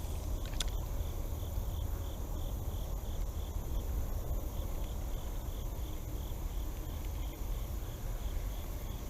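An insect chirping steadily, a high pulse repeating about three times a second, over a low steady rumble.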